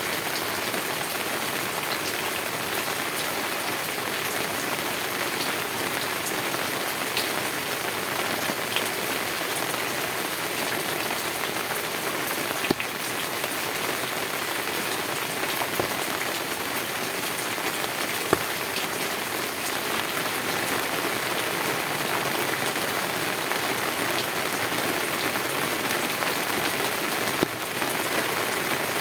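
Heavy rain falling steadily on a tin roof, a dense even patter with a few louder single drop strikes.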